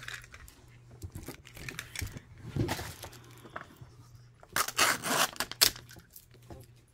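Thin plastic wrapping being torn and crinkled while a plastic surprise toy ball is unwrapped and pulled open, with small plastic clicks. The tearing comes in two louder spells, a short one about two and a half seconds in and a longer one about two-thirds of the way through.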